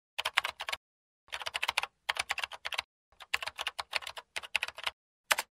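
Computer keyboard typing sound effect: several quick runs of keystrokes with short pauses between them, then a single keystroke near the end.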